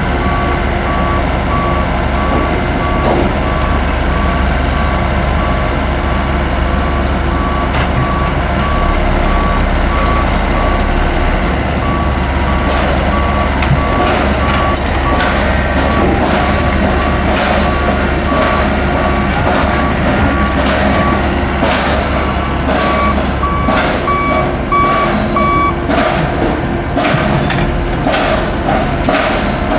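Heavy construction vehicle's reversing alarm beeping steadily over its running diesel engine; the beeping and engine stop a few seconds before the end. Scattered metal knocks and clanks over the last part.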